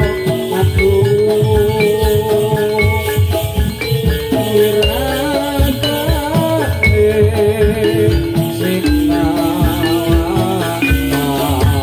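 Javanese gamelan-style accompaniment for a rampak buto dance: a held, wavering melody over metallophones, drums and rattling percussion.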